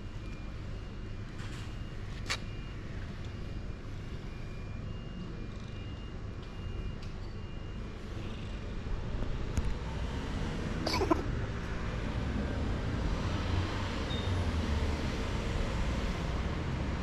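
Steady low rumble of road traffic that grows louder about halfway through as a vehicle comes closer. A single short cat meow comes about two-thirds of the way in.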